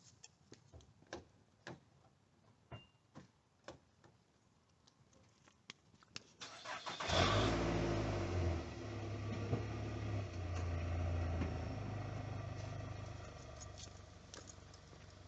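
A 2013 Nissan Altima's engine cranks and starts about seven seconds in, then idles steadily, growing quieter near the end. Several light clicks and knocks come before the start.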